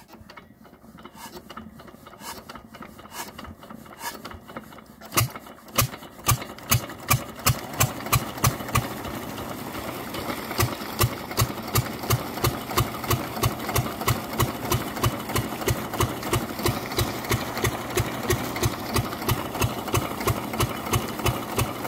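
Field Marshal 8 HP single-cylinder diesel engine being hand-cranked. It catches about five seconds in and settles into a steady slow beat of about three firing strokes a second, driving the tube-well pump.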